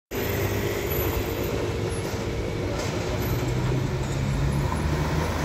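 A city tram running along street tracks amid steady road traffic, with car tyres passing on a wet road. A low hum swells slightly about halfway through.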